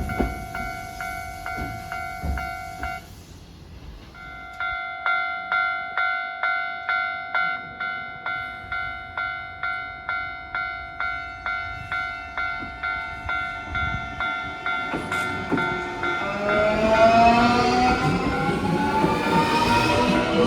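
Japanese level-crossing warning bell ringing in an even rhythm of just under two strikes a second, breaking off briefly about three seconds in and then resuming. Near the end a Nankai electric train's traction motors come in with a whine rising in pitch, growing louder than the bell.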